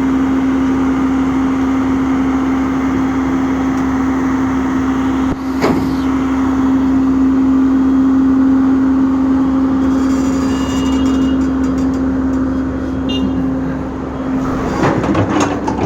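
Komatsu excavator's diesel engine running steadily with a constant hum. A sharp knock comes about five and a half seconds in, and a burst of clattering near the end.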